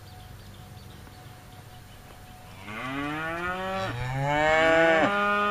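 A cow mooing: after a quiet start, one long moo rises in pitch about two and a half seconds in, breaks briefly, then runs on loudly, held at a steady pitch.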